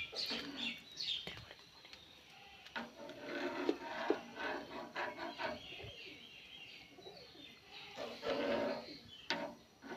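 Metal spoon stirring noodles in a small pan of water, scraping and clinking sharply against the pan a few times. Birds chirp in the background.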